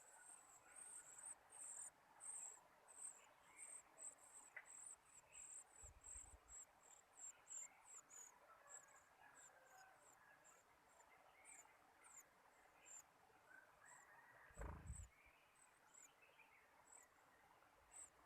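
Faint outdoor ambience carried by a steady run of short, very high-pitched chirps, about two or three a second, with softer small calls underneath. Two brief low thumps come about six seconds in and near fifteen seconds.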